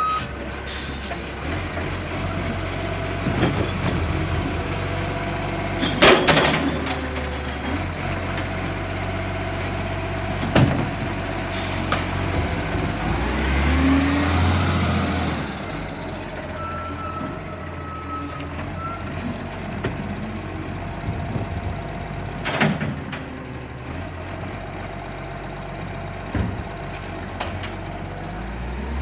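Recycling truck's diesel engine running steadily, with several sharp bangs, the loudest about six seconds in. About halfway through comes a swelling hiss and a rise in engine pitch as the truck moves off past, then a couple of short steady beeps.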